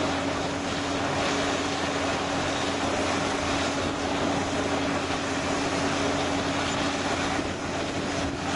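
Diesel engines of crawler bulldozers running under load as they push soil, a steady drone with a constant hum and no breaks.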